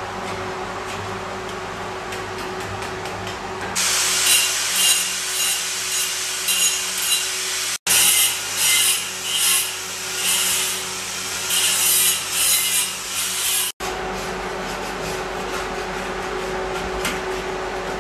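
Abrasive rubbing on the edge of a sintered stone slab, in repeated strokes about twice a second, for about ten seconds from a few seconds in, over a steady hum.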